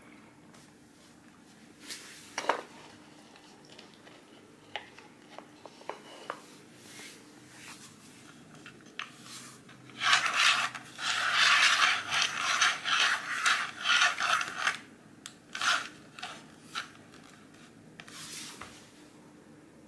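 Small plastic bottle caps being slid and shuffled across a wooden floor by hand: a rough scraping that runs for about five seconds in the middle, with scattered lighter clicks and taps of the caps before and after.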